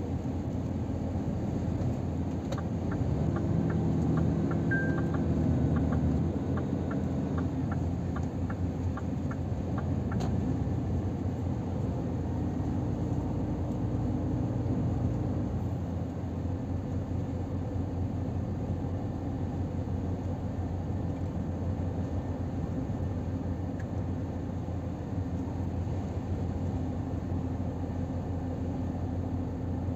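Cab interior sound of a Scania R500's straight-six diesel engine pulling the truck at road speed over a steady road rumble. The engine gets louder for a few seconds near the start as the truck accelerates. A turn signal ticks at about two ticks a second for several seconds near the start.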